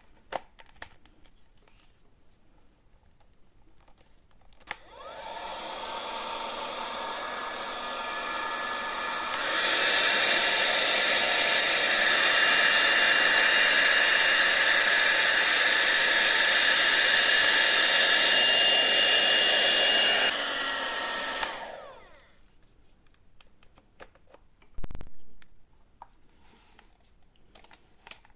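Rowenta CF9550F0 hot-air rotating brush switched on, its fan motor whirring up to speed on a lower setting. About ten seconds in it is switched to a higher, louder setting. Around twenty seconds in it steps down and winds to a stop.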